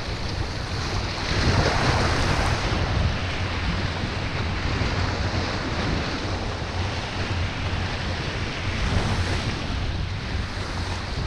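Small waves washing and splashing against jetty rocks, with wind buffeting the microphone in a steady low rumble.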